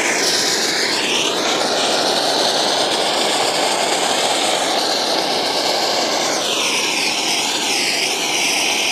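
Anar fountain firework spraying sparks with a steady, loud rushing hiss that wavers in pitch.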